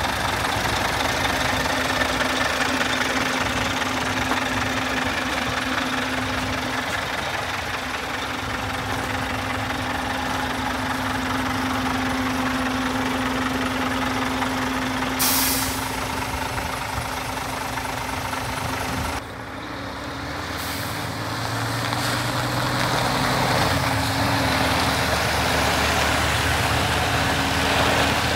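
Scania P400 truck's diesel engine running at idle, with a short burst of air hiss about halfway through. In the last third the engine note drops lower and grows louder as the truck moves off.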